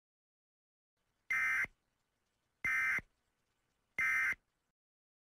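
Three short, buzzy Emergency Alert System data bursts, each about a third of a second long and about a second apart. These are the SAME end-of-message tones that close an alert.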